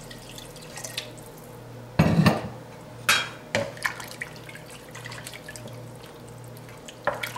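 Water poured from a pitcher into a stainless steel stockpot of chopped vegetables and chicken, then a wooden spoon stirring through the liquid. There is a loud knock about two seconds in and a few sharper knocks of the spoon against the pot, two of them near the end.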